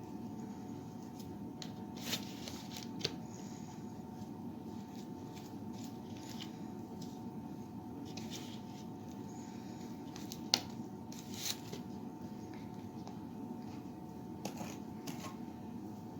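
Sticky peanut-butter suet being smeared and pressed onto a pine cone: soft scraping and squishing with scattered small clicks, one sharper click about ten seconds in, over a steady low background hum.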